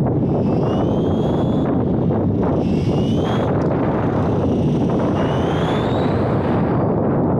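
Tamiya F104 radio-controlled F1 car's electric motor whining, rising in pitch three times as the car accelerates. Underneath is a loud, steady rumble of wind and vibration on the onboard camera's microphone.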